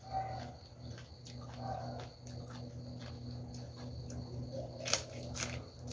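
A person chewing crisp fresh vegetables and pounded bean salad with the mouth close to the microphone: wet smacks and crunches, with two sharper clicks about five seconds in, over a steady low hum.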